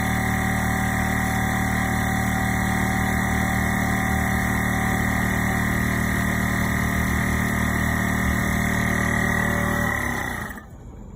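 Makita AC461XL electric air compressor running steadily with a high whine over its motor and pump hum, then shutting off about ten seconds in, its motor winding down quickly: typical of the pressure switch cutting out as the tank reaches full pressure.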